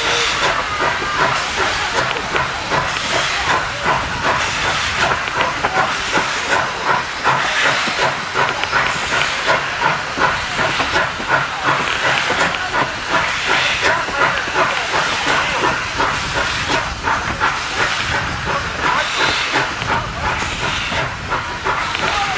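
Victorian Railways K class steam locomotive K163 working along, its exhaust beating in a quick, steady rhythm over hissing steam, heard from a carriage window behind the engine.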